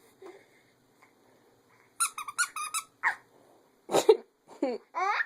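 A baby's high-pitched squealing laughter: a quick run of squeaks about two seconds in, then a few more single squeals.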